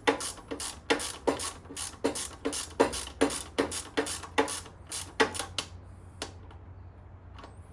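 Socket ratchet clicking in quick, even strokes, about three a second, as a 12 mm rear brake caliper bolt is backed out; the strokes stop a little past halfway through.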